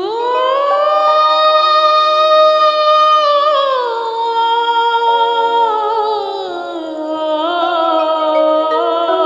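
A woman's voice hums a wordless melody over a karaoke backing track. It slides up into a long held note, then steps down to lower held notes a few seconds later.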